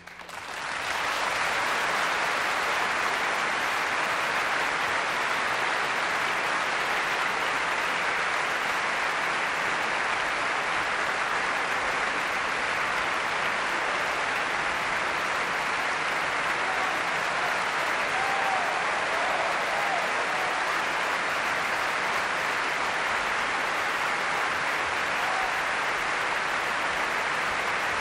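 Concert hall audience applauding, swelling up within the first second and then holding steady.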